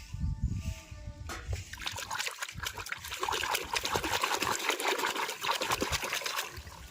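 Water splashing and trickling in a fast crackle, starting about a second in after a brief low rumble.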